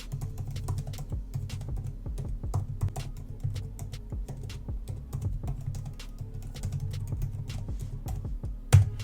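Typing on an Apple Magic Keyboard for iPad Pro: quick, irregular key clicks throughout, with one louder knock near the end.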